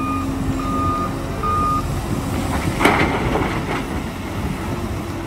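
Excavator reversing alarm beeping three times in the first two seconds, over a steady rumbling noise, with a single sharp knock about three seconds in.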